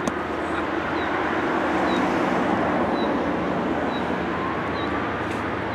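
Steady rushing outdoor background noise with a single sharp knock just at the start and faint high chirps about once a second.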